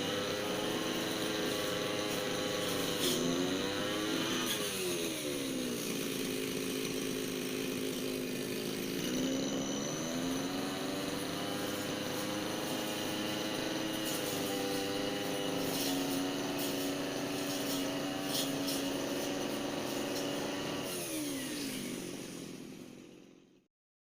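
Petrol brush cutter engine running at high revs, its pitch dropping as the throttle eases and climbing again a few seconds in, about ten seconds in, and once more near the end before the sound fades out.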